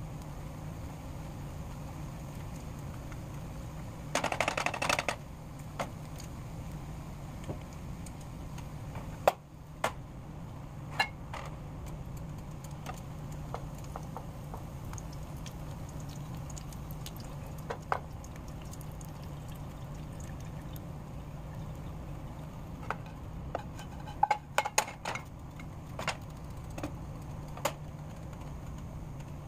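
Bacon frying in grease in a nonstick skillet, with a spatula clicking and knocking against the pan now and then; a louder burst lasts about a second, about four seconds in.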